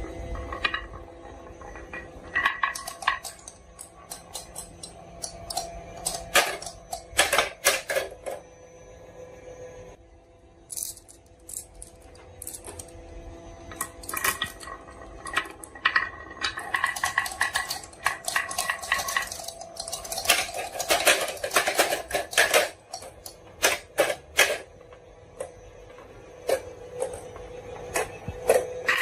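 Marbles rolling and clattering down a marble run, with many sharp clicks and clacks as they strike the track pieces and each other, and a short lull partway through.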